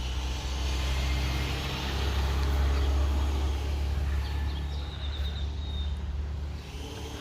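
Motor vehicle running with a steady low rumble that swells in the middle, with a few faint high chirps about two-thirds of the way in.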